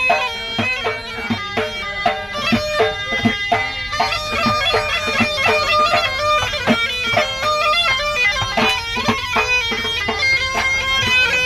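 Tunisian mezwed bagpipe playing a melody of quickly changing notes over a steady beat of hand-drum strokes.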